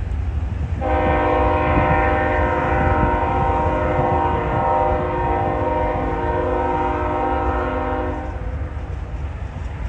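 Diesel freight locomotive's air horn sounding one long blast of several notes at once, starting about a second in and lasting about seven seconds, for a grade crossing. Underneath, the low rumble of the locomotives and rolling train runs on.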